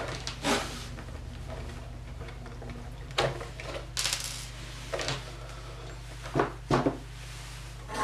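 Handling of a 1:16 RC short course truck's body: the metal body clips are pulled from their posts and the thin plastic body shell is lifted off the chassis, giving a handful of separate sharp clicks and light plastic knocks.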